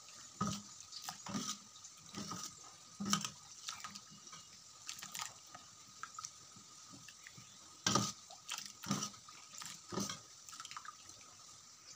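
A steel spoon stirring thick boiled moong dal in a steel pot: faint wet slopping with irregular light clinks and knocks of the spoon against the pot.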